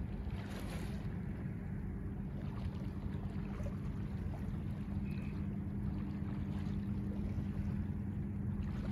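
Wind on the microphone over gentle surf in shallow water, with a steady low hum underneath.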